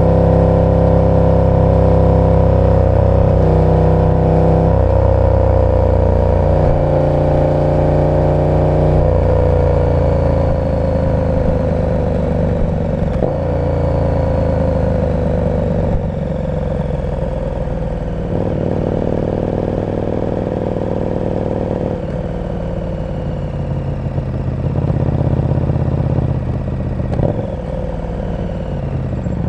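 KTM 1290 Super Duke R's V-twin engine through an aftermarket exhaust, riding at low revs in traffic. The pitch steps up a few times early on, then falls steadily for about seven seconds as the bike slows, runs low and even, and rises briefly before dropping again near the end.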